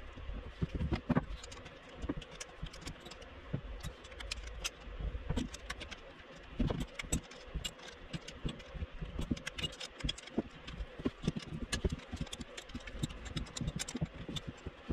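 Irregular light metallic clicks and rattles of nuts and small metal parts being handled and fitted by hand onto a first-gen Cummins vacuum pump and its diaphragms.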